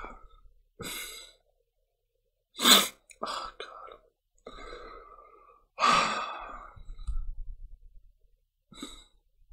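A man sighing and breathing out heavily several times, the loudest sighs about three and six seconds in, pained and emotional.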